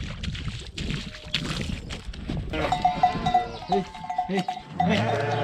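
Sheep bleating repeatedly from about halfway in, after a stretch of rough rustling noise.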